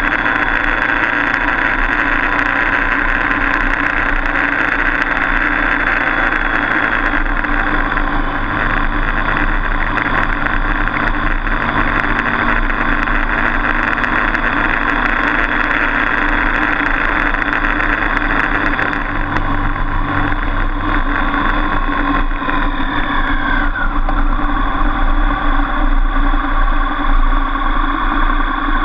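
Motorcycle engine running at steady road speed, heard with heavy wind rush on the bike-mounted microphone. About three-quarters of the way through, one tone slides down in pitch.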